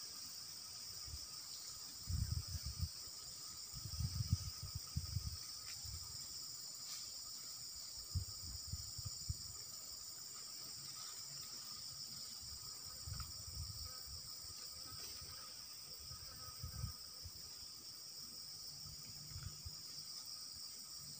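Steady, high-pitched chorus of insects. Short bursts of low rumble on the microphone come and go several times.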